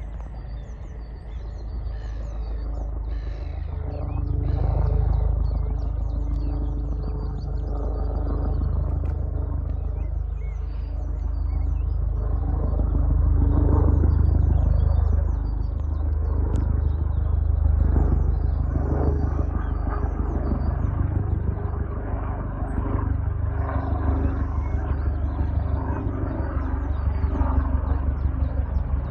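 Sikorsky S-76 twin-turbine helicopter flying overhead: a continuous low rumble with the rapid beat of the rotor blades and a steady turbine tone, growing louder about four seconds in and swelling and easing as it passes. Small birds chirp faintly in the background.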